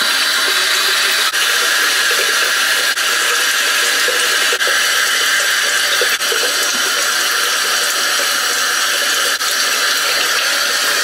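Steady, loud rushing noise that starts abruptly and cuts off sharply near the end.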